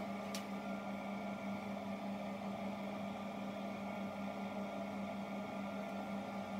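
A steady low hum with a light hiss, unchanging throughout, with one brief click shortly after the start.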